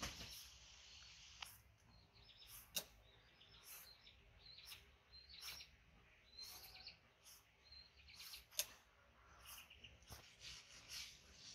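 Faint, short scraping strokes of a small knife peeling a green mango, coming irregularly about once a second, a few sharper than the rest, with faint high chirps between them.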